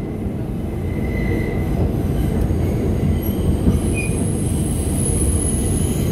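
Bombardier R142 subway train in motion: a steady low rumble of wheels on rail, with thin high squealing tones that come and go.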